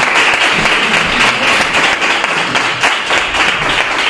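Guests applauding: steady, dense hand clapping from a small crowd.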